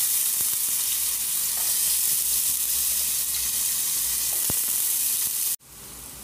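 Minced garlic sizzling in hot cooking oil in a pan, a loud steady sizzle. About five and a half seconds in it drops suddenly to a quieter sizzle.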